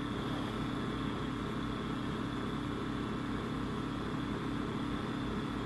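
Steady low hum under a thin hiss, unchanging throughout: background room and recording noise with no speech.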